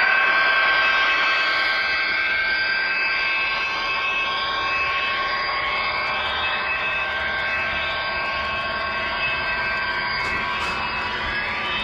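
Model freight train rolling past close by: a steady whine from the model diesel locomotive, fading away near the end, over the rolling noise of the freight cars' wheels on the rails.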